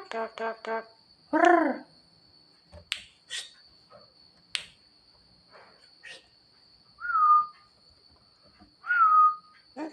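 Javan myna calling and singing: a quick run of short harsh notes, then a longer arched call, scattered sharp clicks, and two whistled notes that slide down and hold, about seven and nine seconds in.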